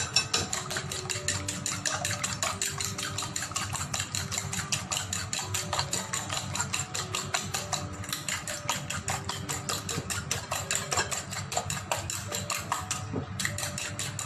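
Fork beating eggs in a glass bowl: rapid, steady clicking of the metal tines against the glass.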